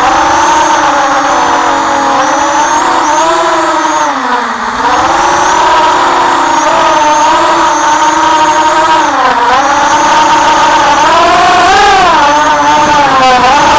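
FPV drone's electric motors and propellers whining in flight, the pitch following the throttle: it drops briefly twice and climbs sharply near the end.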